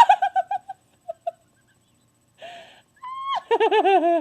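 A girl's high-pitched giggling in quick pulses at the start, a breathy gasp midway, then a high squeal that breaks into a fast run of laughter near the end.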